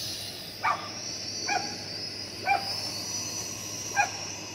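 A dog barking four short times, about a second apart, over the steady high whine of a small quadcopter drone's propellers.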